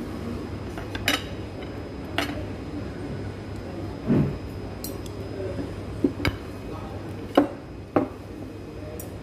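Metal fork and knife clinking and scraping against a ceramic plate while cutting fried chicken: irregular sharp clinks about once a second over a steady low hum.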